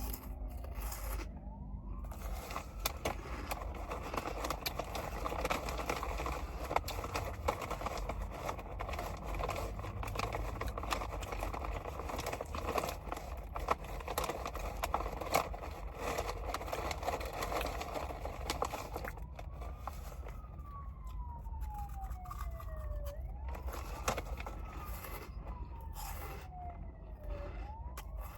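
A wailing emergency-vehicle siren, its pitch rising and then sliding down over a few seconds, repeated. It is heard briefly at the start and clearly again in the last third. Between these comes a dense crackling with many sharp clicks.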